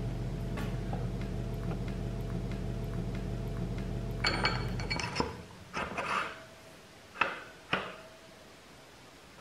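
Metal parts clinking and knocking as a motorcycle front axle and wheel hub are fitted back into the fork: a quick cluster of clinks about halfway, then four single knocks. A steady low hum runs under the first half and stops suddenly.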